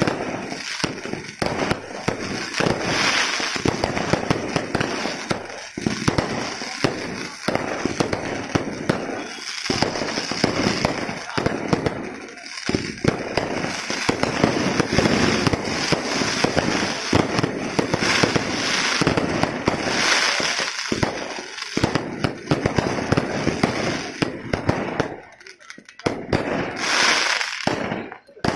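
Fireworks display: a continuous barrage of bangs and crackling from aerial shells and firecrackers going off in quick succession, with hissing and whistling sparks. It thins out briefly near the end before picking up again.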